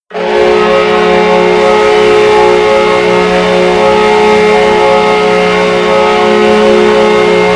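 Minnesota Wild arena goal horn sounding one long, loud, steady blast that starts suddenly: a low chord of held tones that does not waver.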